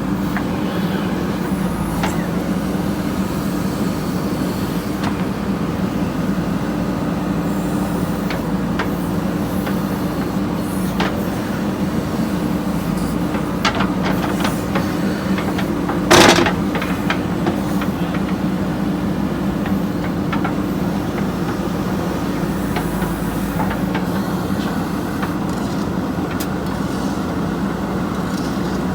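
JCB backhoe loader's diesel engine running steadily under work, with scattered clanks and one louder short burst of noise about sixteen seconds in.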